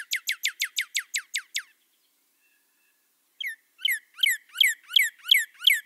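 Northern cardinal song: a fast run of about ten clear, down-slurred whistles lasting under two seconds, then after a pause a slower series of repeated slurred whistled notes.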